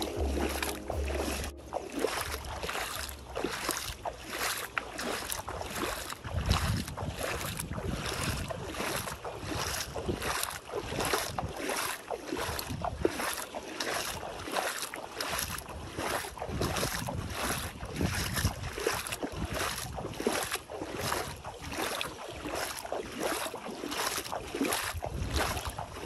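Shallow seawater swishing and lapping around bare feet, with a regular swish about twice a second, and wind rumbling on the microphone from about six seconds in.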